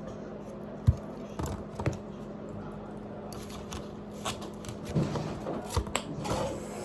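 Someone eating noodles and vegetables: scattered small clicks, knocks and rustles of the mouth and utensils, over a steady low hum.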